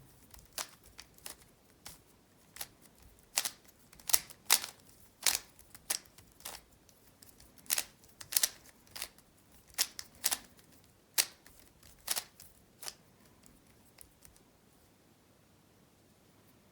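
A speed cube being scrambled by hand: its layers turned in quick, irregular plastic clacks, one or two a second, stopping about thirteen seconds in.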